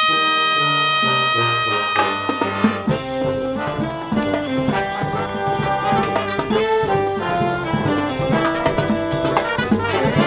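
Brass-and-saxophone marching band playing live: trumpets, saxophones and sousaphones. A long high note is held for about the first two seconds, then the full band moves into a quick, busy passage over low sousaphone notes.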